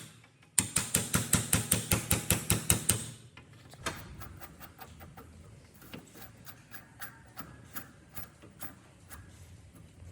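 Rapid back-and-forth scraping or rubbing strokes, about seven a second, from about half a second in until about three seconds in. After that come fainter, scattered light taps and clicks.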